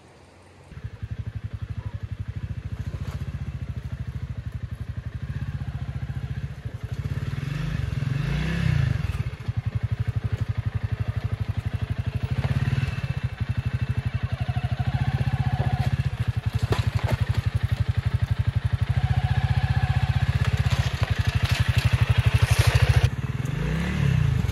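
Adventure motorcycle engine running at low speed over a rocky trail, with a few knocks. The engine revs up and back down about eight seconds in and again near the end.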